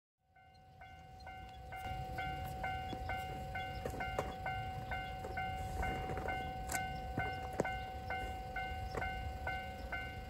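Level-crossing warning bell ringing in a steady rhythm, about two to three strikes a second, fading in over the first couple of seconds, over a low rumble.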